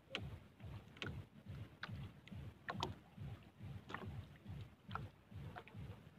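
Faint water slapping against the hull of a small paddle boat (bangka): soft low knocks about four times a second, with sharper clicks about once a second.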